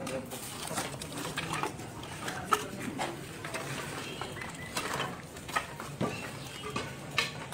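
Scattered sharp wooden knocks and clatter of firewood logs being handled and set down for a cremation pyre, at irregular intervals over a low background hum of people moving about.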